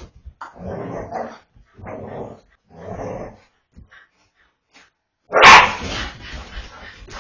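A dog barking and growling in play, three short bursts about a second apart. Near the end a loud sudden burst of sound, then background music comes in.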